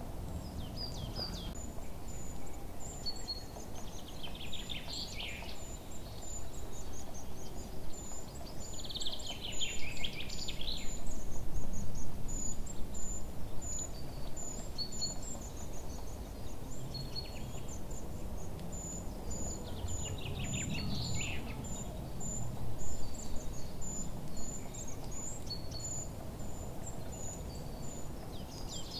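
Birds chirping and calling, with quick high chirps repeating over and over and a falling call every several seconds, above a low background rumble.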